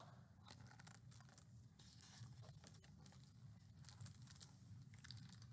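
Near silence with faint paper rustling and light clicks as the pages of a hardcover picture book are handled and turned, a little louder about four seconds in.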